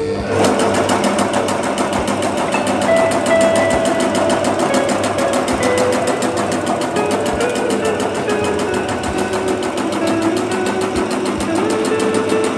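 Bakso meatball forming machine running: a steady, fast, even mechanical clatter from its gear-driven forming head, with a humming tone that shifts a little in pitch.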